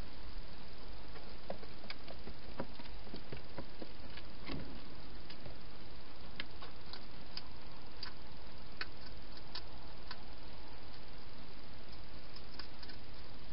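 Hedgehog eating from a dish inside a plastic feeding box: irregular small clicks and crunches, sharper and more frequent in the second half, over a steady hiss.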